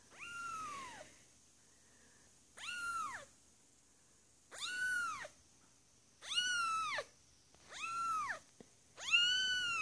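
One-month-old Persian–Manx (Manxian) kitten meowing repeatedly: six high meows, each rising then falling in pitch, coming one every second and a half or so.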